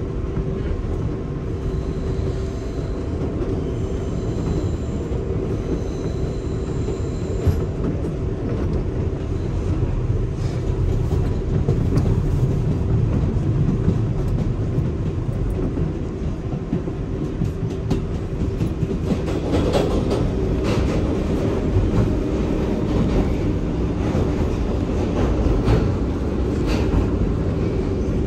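New York City subway 4 train running along the track: a steady low rumble with a motor hum. From about two-thirds of the way through comes a run of sharp clicks and clacks of the wheels over the track.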